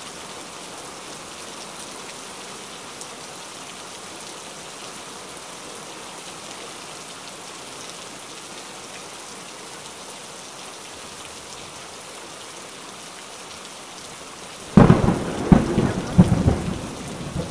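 Steady heavy rain falling. Near the end a sudden loud thunderclap breaks in: several sharp cracks in quick succession, then a rumble that fades.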